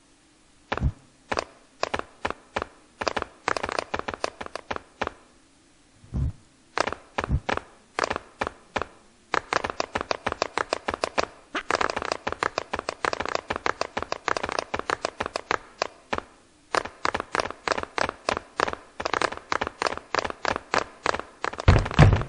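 Step-dance percussion: sharp, rhythmic taps and clicks of dancing feet. Single taps come about twice a second, then build into rapid runs with a short break about two-thirds through, and a few heavier low stomps come at the very end.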